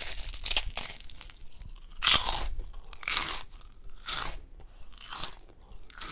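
A Japanese Spitz puppy crunching and chewing crisp lettuce leaves, with a crunchy bite about once a second.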